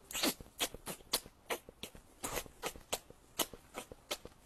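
A cat gnawing and licking at its own paw: a run of short, irregular clicking smacks, about three a second.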